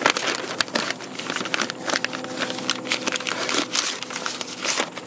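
Brown kraft packing paper crinkling and rustling with many quick crackles as it is pulled off a cardboard shipping tube.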